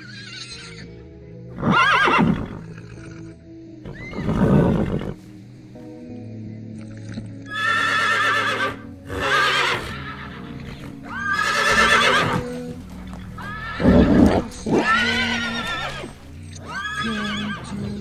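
Horses whinnying again and again, a call every two seconds or so, over steady background music.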